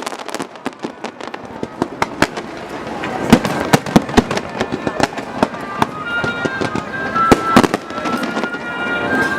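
Aerial fireworks bursting: a rapid string of sharp bangs and crackles, some much louder than others. From about six seconds in, steady high held tones that step in pitch sound alongside the bangs.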